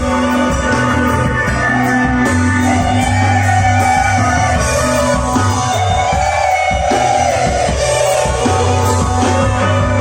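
Live rock band playing: electric guitar, bass and drums with a wavering sung melody over them, at a steady full volume.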